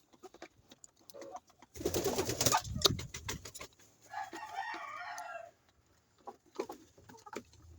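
Laying hens in a poultry house, with scattered pecking clicks and a loud rustle about two seconds in. About four seconds in, one chicken gives a drawn-out call lasting roughly a second and a half.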